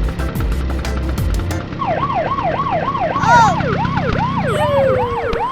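Background music with a beat, then from about two seconds in a cartoon sound effect of rapidly repeating swooping whistle tones, about two to three a second, warbling like a siren.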